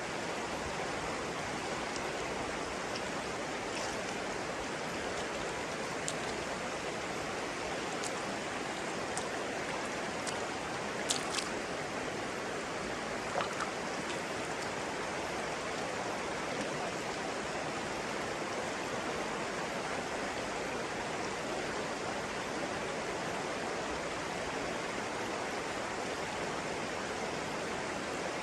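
Flowing stream water rushing steadily, with a few brief sharp high ticks over it, the loudest about eleven seconds in.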